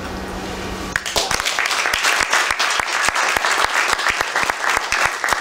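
Audience applauding, breaking out about a second in with many hands clapping.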